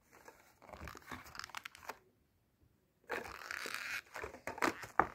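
Plastic blister pack of a Hot Wheels car being pried and torn off its cardboard backing card. The crinkling and tearing comes in two bouts, the second louder, with several sharp cracks of the plastic near the end.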